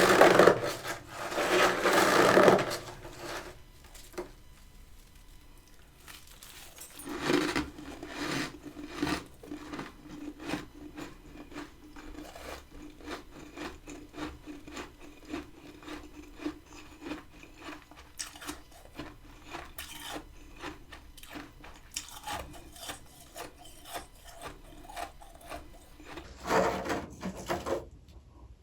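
Freezer frost being scraped and crunched: loud rough rasping scrapes in the first couple of seconds, again about seven seconds in and near the end, with many small crisp crackles in between.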